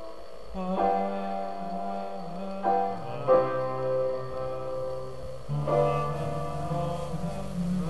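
Slow piano music: held chords over a low bass line, a new chord struck every second or two.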